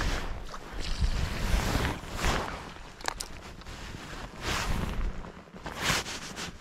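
Wind buffeting the microphone in repeated gusts, over a low rumble, with a brief run of clicks about three seconds in.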